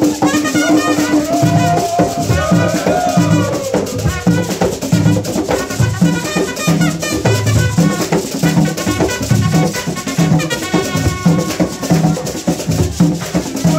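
Live bobobo (akpesse) dance music: drums keep a steady beat with rattles shaking over it, and voices sing in waves on top.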